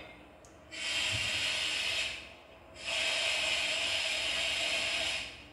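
Two long, steady bursts of compressed-air hiss, a sound effect from the ESU LokSound XL V4.0 decoder played through the loudspeaker of a Piko G scale BR-199 diesel locomotive model.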